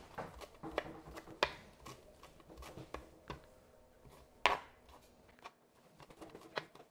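Chef's knife chopping cilantro on a plastic cutting board: irregular knocks of the blade on the board, two of them louder, about a second and a half and four and a half seconds in.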